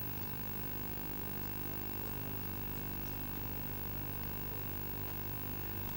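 A steady electrical hum with hiss and static that does not change, with a thin high whine running through it. It sounds like noise in the recording rather than any event.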